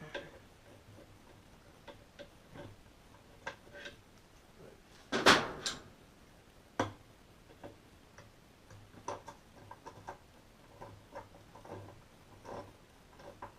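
Scattered light clicks and taps of needle-nose pliers and a bolt against the washing machine agitator's parts as the bolt is worked down into place, with one louder clatter about five seconds in.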